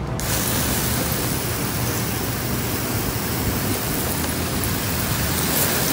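Steady hiss of water spraying, an even rushing noise with no pitch.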